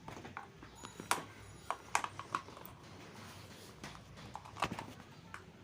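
Scattered clicks and light knocks of a table fan's parts being handled as the fan is taken apart, a few close together in the first half and a couple more near the end.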